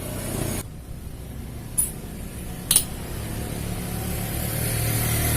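Two sharp metallic clinks about a second apart over a steady low motor hum that grows louder near the end.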